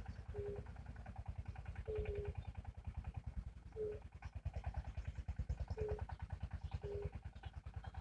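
Chorus of frogs calling: a steady low, rapid pulsing croak, with short higher notes repeating every second or two.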